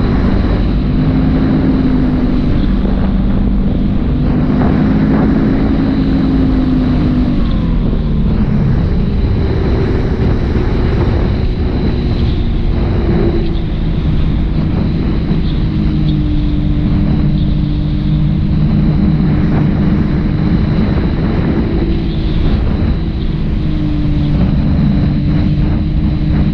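Electric motor and pusher propeller of a Ranger 2400 RC plane, heard from its onboard camera with wind rushing past: a steady propeller hum that drops in pitch about a quarter of the way in as the throttle is eased, then holds at lower power while the plane descends low over the ground to land.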